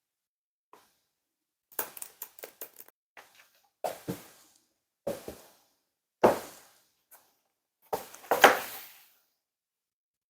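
Parts of a portable laptop desk being handled and set down: a quick run of small clicks, then several separate knocks and thuds, the loudest pair near the end.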